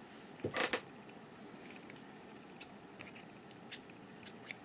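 Faint handling of a pair of scissors picked up to cut the yarn: a short clatter about half a second in, then a few light clicks.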